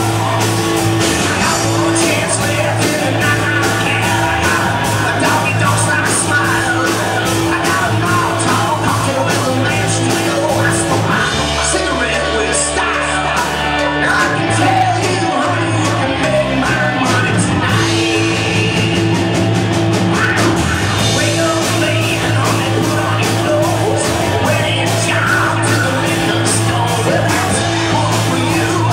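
Live rock band playing loudly, with electric guitars, bass, drums with a steady cymbal beat, and a lead singer. About twelve seconds in, the drums drop out for a couple of seconds under a held low note, then the full band comes back in.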